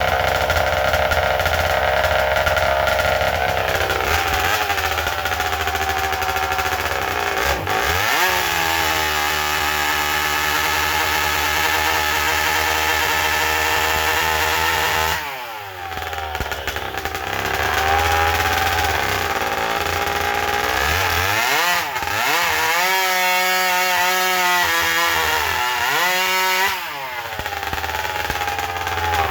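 McCulloch 101B two-stroke chainsaw running at high revs, its pitch dipping and recovering again and again as it loads up in cuts. The throttle is let off briefly twice, about halfway through and near the end.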